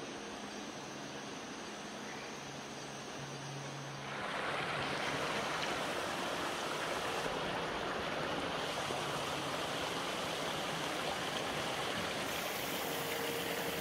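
Creek water flowing with a steady rush. About four seconds in it becomes louder and brighter: water tumbling over a small rocky cascade.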